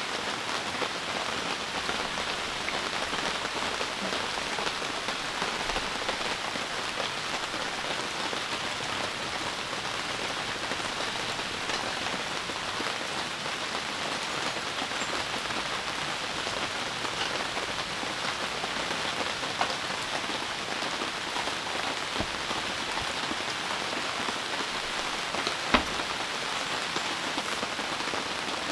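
Heavy rain falling steadily, an even dense hiss with a few sharper single taps scattered through it, the loudest one near the end.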